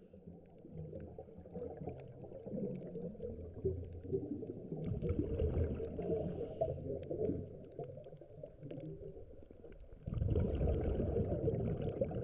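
Low rumbling water and wind noise, as from a small boat on the sea, swelling about five seconds in and again near the end.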